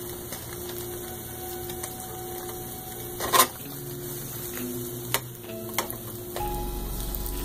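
Eggs frying in butter in a nonstick skillet, sizzling softly. About three and a half seconds in, the pan is lifted and clanks against the electric coil burner. Near the end there are light clicks of a spatula sliding under the eggs.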